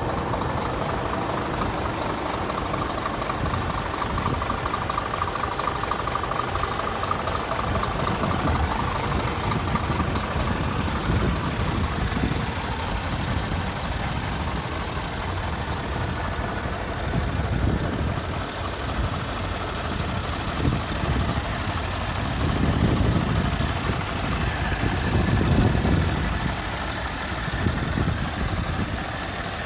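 Scania G360 truck's diesel engine idling steadily, with a few brief louder low swells near the end.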